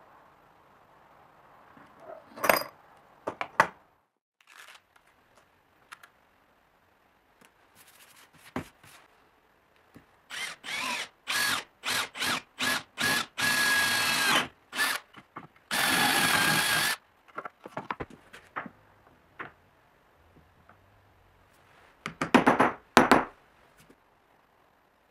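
Cordless drill triggered in a string of short bursts, then run twice for about a second at a time with a steady motor whine. Sharp metallic clicks come before and after, a few near the start and a quick cluster near the end.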